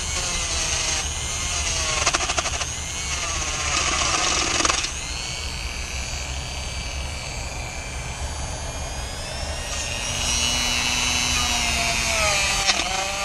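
Handheld power tool whining at high speed as it cleans the aluminum surface of a microchannel coil, its pitch sagging and recovering as it is pressed against the metal. A steady low engine hum from the idling van runs underneath.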